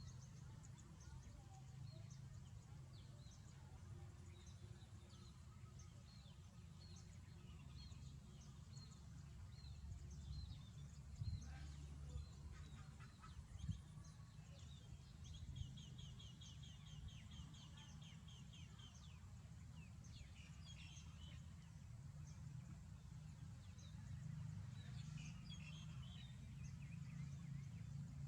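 Faint, scattered high chirps of small birds, with a run of rapid repeated notes lasting a few seconds about halfway through, over a steady low rumble; two sharp clicks stand out near the middle.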